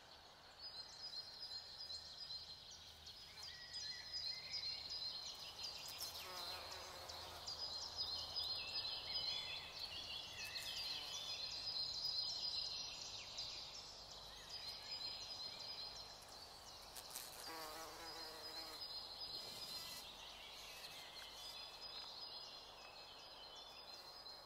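Insects chirping: a faint, high, steady trill that stops and starts again every few seconds, with short high chirps mixed in.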